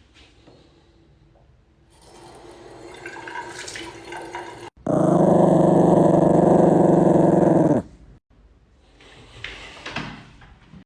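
An animal's loud, steady call held for about three seconds at an even pitch, starting suddenly about five seconds in and stopping abruptly, between quieter stretches of rustling.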